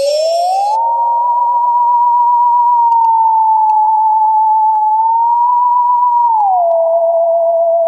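Eerie theremin-style electronic tone with a wavering vibrato, sliding up in the first second, holding, wobbling down and back up, then gliding lower near the end: a spooky Halloween ringtone.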